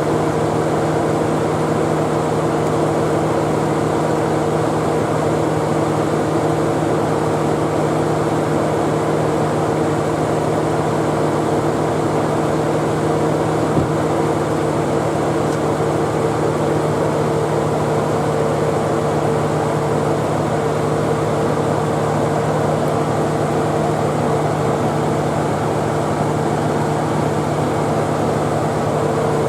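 Nissan Elgrand E51's air conditioning running with the engine on: a steady hum with a constant whine, the abnormal air-conditioning noise whose cause dealers have not traced. A faint click about halfway through.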